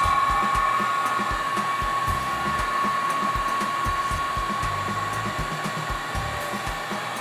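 Heat gun blowing steadily with a high whine, growing gradually fainter.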